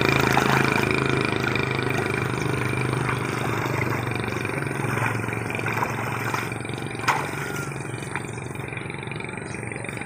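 A person wading through a shallow muddy canal, water splashing and sloshing around the legs, fading as he climbs out onto the bank, with a sharp knock or two near the end.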